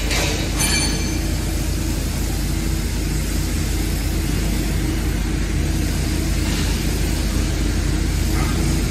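Electric pallet stacker with an AC drive motor running steadily as it travels across a concrete floor.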